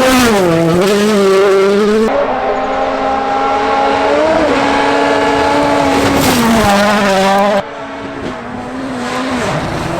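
Rally car engines at full throttle on a flat-out stage: a brief dip in revs early, then a long steady high-revving pull that falls away, followed by an abrupt switch to a quieter engine note from another passage.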